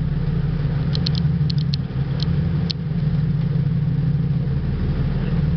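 Sport-fishing boat's engine running steadily with a low, even drone. A few brief high clicks come between about one and three seconds in.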